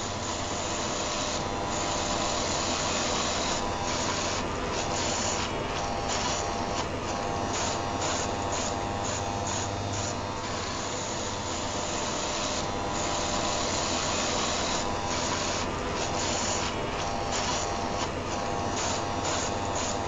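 Rotary electric shaver with Philips ComfortCut heads buzzing steadily, mixed with the steady rushing hiss of an electric fan heater. The hiss drops out briefly again and again.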